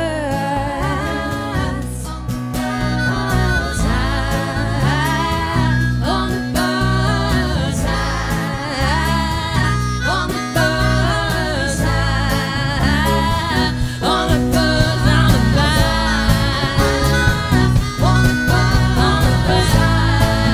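Live blues band playing: a woman singing and a harmonica over electric and acoustic guitars, bass, keyboard and drums, with a steady beat.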